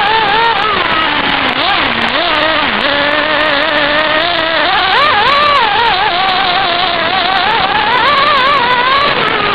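1/10-scale RC car's nitro engine running hard, recorded on board, its whine rising and falling with the throttle over a steady rushing noise. The pitch drops low about two seconds in, climbs sharply about five seconds in, and peaks again near the end.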